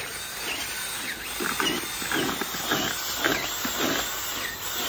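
Cordless drill spinning a paddle mixer through a dry, grainy feed mixture in a plastic bucket, with a rhythmic churning and scraping about twice a second that gets louder partway through.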